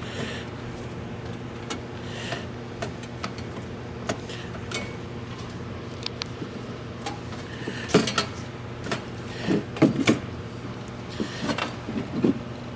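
Metal clanks, knocks and scrapes as a cover plate is worked out from around the hydraulic fan of a Scag Cheetah II zero-turn mower. The knocks are scattered, with busier clusters about eight seconds in and near the end, over a steady low hum.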